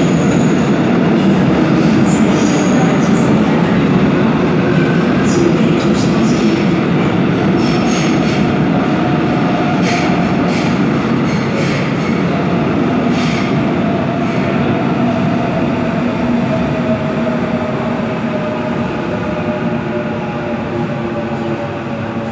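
Seoul Subway Line 4 train running into the station behind platform screen doors: a loud, steady rumble of wheels and running gear, with brief high squeals about ten and thirteen seconds in. The motors' whine falls slowly in pitch and the noise eases off as the train slows to stop.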